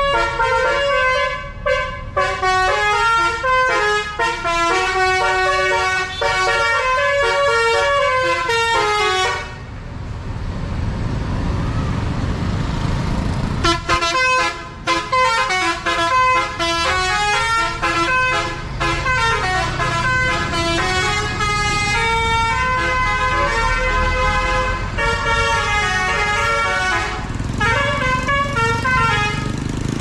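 A tour bus's multi-note musical air horn ("telolet basuri") playing a tune in quick stepped notes, breaking off after about nine seconds while the bus's engine rumbles, then playing again for most of the rest.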